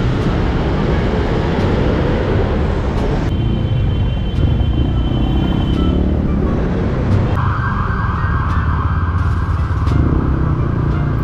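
Motorcycle riding in city traffic: a steady low engine and road rumble, with the sound changing abruptly twice, about three seconds in and again about seven seconds in.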